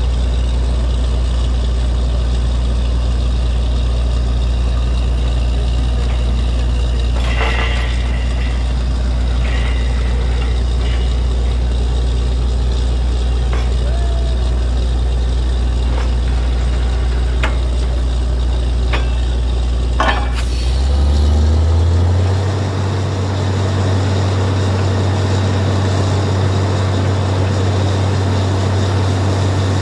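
Truck-mounted borewell drilling rig running with a steady heavy engine drone and a few metallic clanks. About two-thirds of the way in, the engine speeds up to a higher steady pitch as air flushing starts blowing water and rock cuttings out of the bore.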